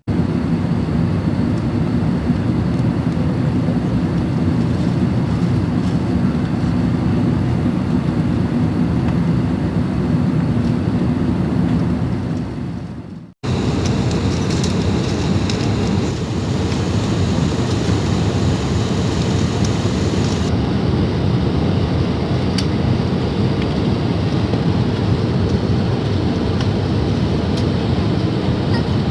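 Steady engine and airflow noise of an Airbus A380 heard from inside the passenger cabin. About 13 seconds in, a sudden cut switches to a second stretch of the same kind of noise, hissier and higher.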